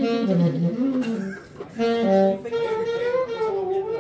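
Band music: a lead melody with gliding, bending pitch over accompaniment, in phrases with a short break about one and a half seconds in.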